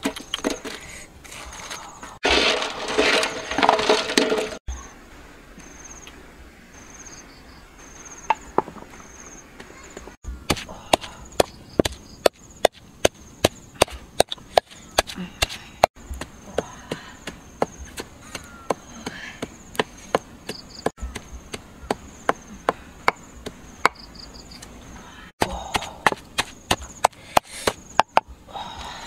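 Chopping on wood: a run of sharp, irregular knocks, about two a second, in the second half. A loud noisy rush lasts about two seconds near the start, and a high pulsing buzz runs underneath.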